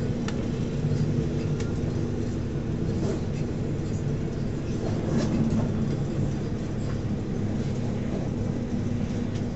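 SNCF passenger train running along the track, heard from inside the carriage: a steady low rumble from the wheels and a constant hum, with a few faint clicks from the rails.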